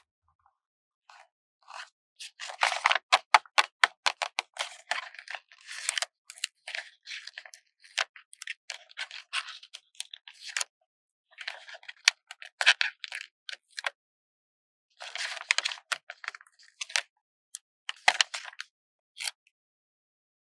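Stickers being peeled slowly off their backing sheet in close-up: a dry, crackly paper rustle made of many small sharp ticks. It comes in runs, starting about two seconds in, with a short pause a little after the middle, and stops shortly before the end.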